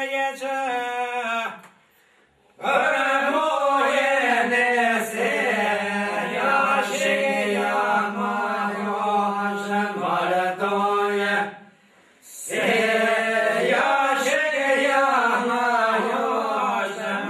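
Men singing a northern Albanian two-part polyphonic song: a low voice holds a steady drone note while the upper voice moves in an ornamented melody. The phrases break off twice, about two seconds in and about twelve seconds in, for a short pause before the singing resumes.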